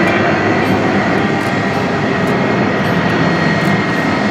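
Airbus A330-200's twin jet engines running at taxi power: a steady rush with a thin, high, even whine.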